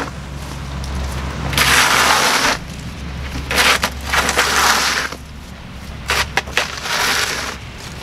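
Snow shovel blade scraping snow off a concrete sidewalk: three long scraping pushes of about a second each, with a few short knocks between the second and third.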